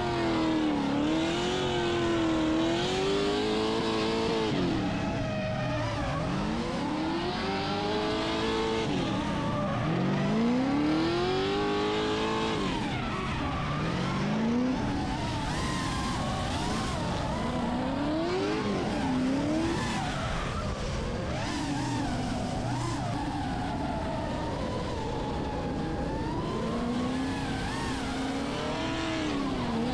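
Drift car engine revving hard, its pitch climbing and dropping again every couple of seconds, with the tyres screeching as the car slides sideways.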